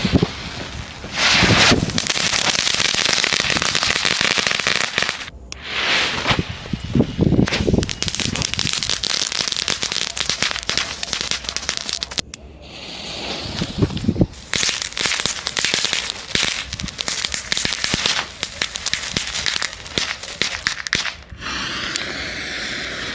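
Tafoya firecrackers going off in long strings of rapid pops that run together into a continuous crackle. The crackle breaks off briefly about five seconds in and again about halfway through, then trails into lighter crackling near the end.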